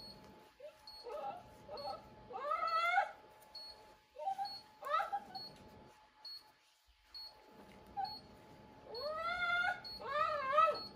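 An animal's repeated high whining cries, each one rising in pitch, coming in several bouts with a quiet gap in the middle. Faint short beeps repeat regularly behind them.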